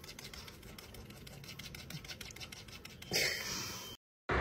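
Fingers scratching a short-coated dog's back: a fast run of faint scratching strokes, then a short breathy noise a little after three seconds in.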